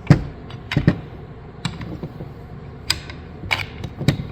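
About six sharp clicks and knocks at irregular intervals, the first the loudest, as the blade, pivot hinge pins and head of a hydraulic cable cutter are handled and fitted together.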